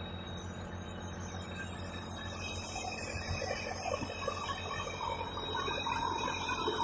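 Compressed-air HVLP spray gun hissing as it sprays, over a steady low hum.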